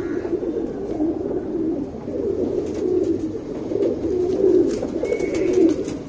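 Domestic pigeons cooing steadily, low overlapping coos that run on without a break.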